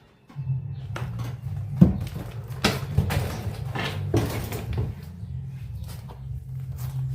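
Knocks, clicks and rustling of hands handling a loudspeaker cabinet and its wiring, with two longer scraping stretches near the middle, over a steady low hum.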